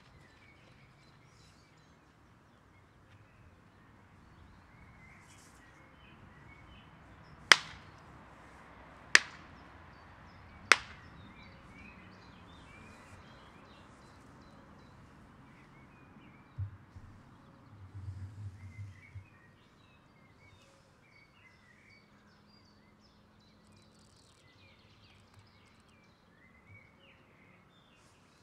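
Two wooden boards slapped flat together three times, sharp claps about a second and a half apart. A brief low rumble comes a few seconds later, with faint bird chirps throughout.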